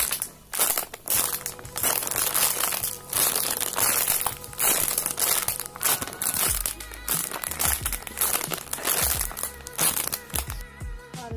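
Clear plastic bag crinkling irregularly as an onigiri-shaped squishy toy inside it is squeezed and turned by hand.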